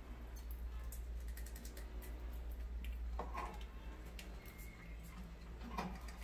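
Rats scrabbling over a plastic bucket trap and its wire-mesh ramps: a patter of light clicks and scratches from their claws. Two short, louder knocks or scuffles come about three seconds in and near the end, over a steady low hum.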